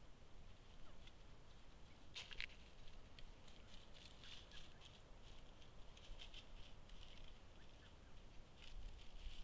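Faint crackling rustles of dry leaf litter as two mountain quail walk and forage, with a brief cluster of louder crackles about two seconds in.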